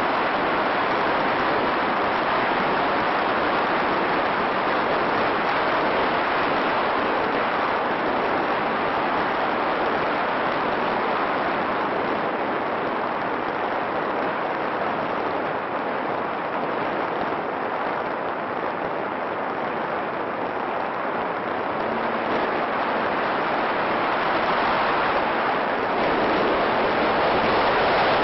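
Steady rushing noise with no distinct tone, easing a little in the middle and swelling again near the end.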